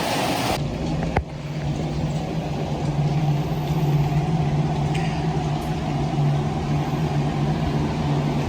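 A steady low mechanical hum. It follows a brief stretch of loud hiss that cuts off suddenly within the first second, with a single click shortly after.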